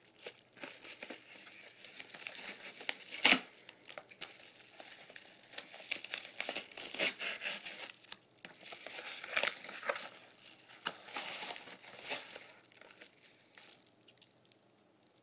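Packaging being torn open and crinkled by hand, with irregular rustling and crackling and one loud sharp snap about three seconds in; the handling dies down near the end.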